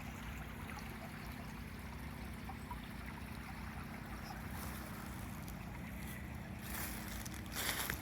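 Steady rushing of running water in a shallow park stream channel, with a low wind rumble on the microphone; a brief rustle near the end.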